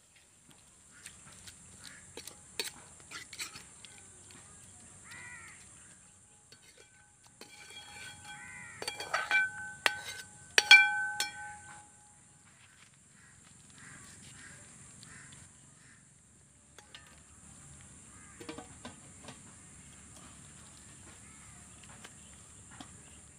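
Metal ladle stirring and scraping through a thick squid masala in an aluminium pot, with scattered clicks against the pot. About nine to eleven seconds in, the ladle knocks sharply against the pot several times, ringing.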